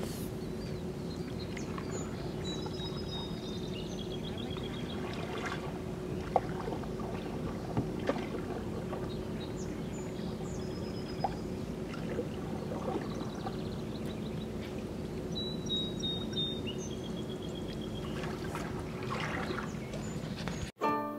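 Canoe paddles dipping and pulling through calm water, with trickling drips and a few soft knocks, over a steady low hum.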